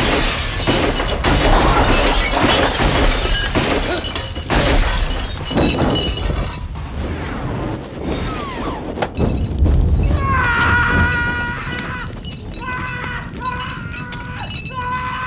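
Gunfire shattering rows of glass liquor bottles on a shelf, with a dense crash of breaking glass over the first several seconds. From about ten seconds in, sustained notes of music take over.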